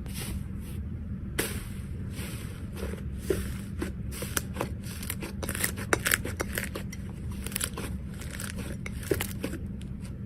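Slime being squeezed and worked by hand, giving off irregular crackling, popping clicks and squelches over a steady low hum.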